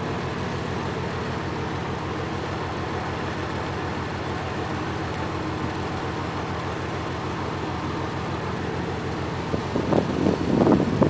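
A ship's engine running with a steady low hum and throb. Wind buffets the microphone in a few louder gusts near the end.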